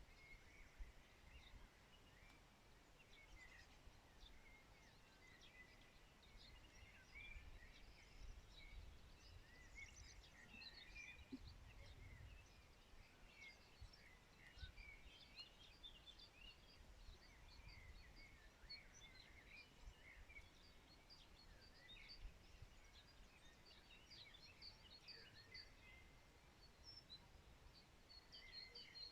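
Faint chorus of many small songbirds chirping and twittering in short overlapping calls, busier near the end, over a soft low rumble.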